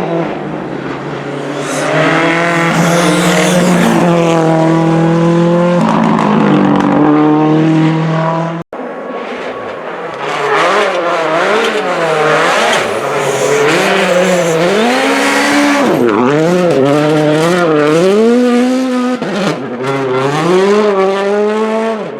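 Rally car engines at high revs on a stage, the pitch climbing and dropping sharply with gear changes and throttle lifts. At about nine seconds the sound breaks off and a second car follows, revving up and down in quick swoops.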